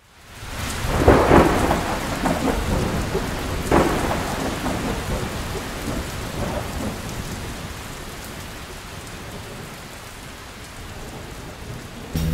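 Thunderstorm: rain hissing steadily, with a loud clap of thunder about a second in and a second one near four seconds. The rain then slowly grows quieter.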